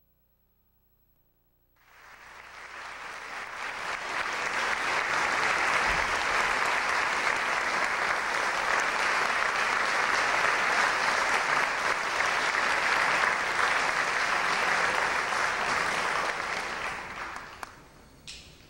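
Audience applauding in a concert hall. It starts about two seconds in, swells to a steady level, and dies away near the end.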